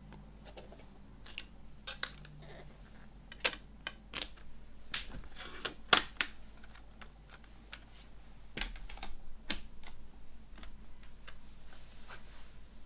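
Plastic CD jewel case and disc being handled on a wooden table: a string of sharp plastic clicks and snaps as the disc is set in and the case is shut, the loudest about six seconds in. Lighter, quicker clicking handling follows in the last few seconds.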